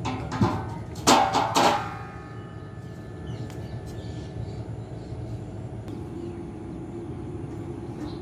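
Steel box-section railing bars knocking together: several sharp metallic clanks in the first two seconds, the last ones leaving a ringing tone that fades over a few seconds.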